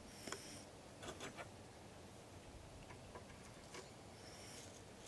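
A handful of faint, light clicks and taps from a plastic seasoning shaker and a wire drumstick rack being handled, over a low background hiss.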